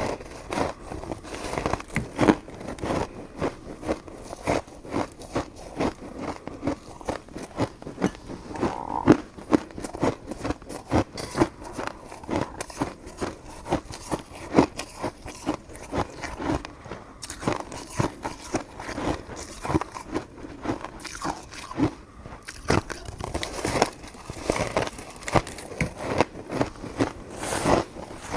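Close-miked chewing and biting of soft, sticky coconut rice cake: an irregular run of short, moist mouth clicks, several a second.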